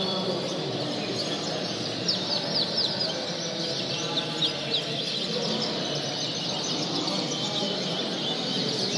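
Many caged canaries chirping and singing at once: quick, high chirps and trills overlapping, over a steady low background hum.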